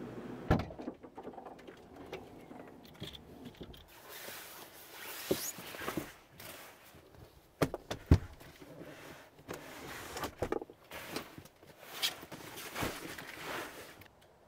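Luggage and cases being handled and loaded into a car: irregular rustling, scraping, knocks and thumps, with the loudest thump about eight seconds in.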